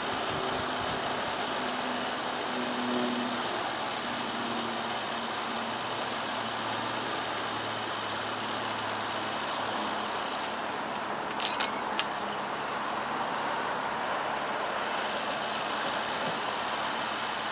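Narrowboat under way: a steady engine drone under an even hiss, with three sharp clicks a little past halfway.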